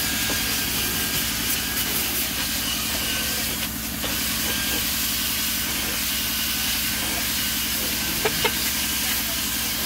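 Cordless drill fitted with a round scrub brush running steadily, its motor spinning the brush against the car's interior plastic panels, with a steady hiss over it.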